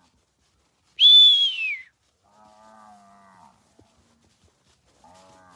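A single loud whistle about a second in, sliding down in pitch: a herder's whistle driving cattle. Afterwards cattle in the herd low faintly, twice.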